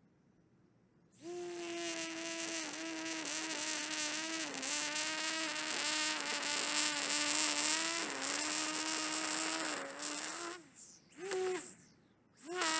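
EGO battery-powered string trimmer's electric motor whining as it edges grass, its pitch dipping each time the spinning line bites into the turf. It starts about a second in, cuts off near the end, gives one short blip, then starts again just before the end.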